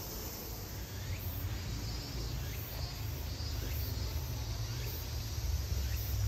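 Insects shrilling, a high-pitched song pulsing about once a second, over a steady low rumble.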